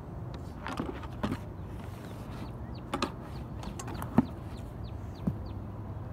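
A few scattered knocks, the sharpest about four seconds in, over a steady low wind rumble, while a bird gives a run of short falling chirps in the background.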